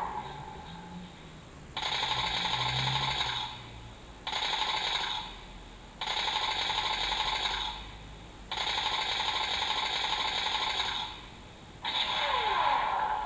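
Gundam MS-09 Dom alarm clock giving a mechanical whirring rattle in five bursts of one to two and a half seconds each, with short pauses between them; a falling tone runs under the last burst.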